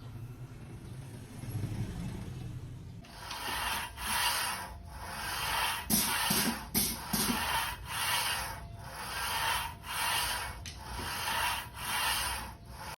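Repeated rubbing strokes on a hard surface, roughly one a second, starting about three seconds in after a low hum.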